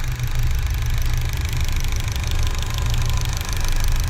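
Car engine idling on CNG, with the BRC Sequent 32 gas injector rail giving a rapid, even ticking clatter over the engine rumble. The clatter sounds like a sewing machine or a diesel engine. It comes from the injectors' worn internal piston and needle knocking after long CNG use.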